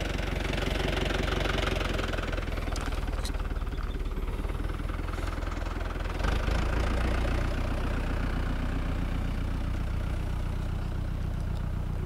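Farm tractor engine running steadily with a low, even beat, getting louder about six seconds in.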